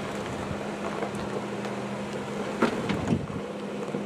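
Engine of a lifted off-road 4x4 running steadily at low revs as it crawls its tire against a boulder, with a few short crunches of tire on rock and gravel about two and a half to three seconds in.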